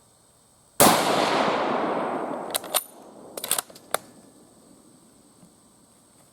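A single rifle shot from an Argentine 1909 Mauser in 7.65×53mm Argentine, echoing away over about a second and a half. A quick series of sharp metallic clicks follows, the bolt being worked to eject the case and chamber the next round.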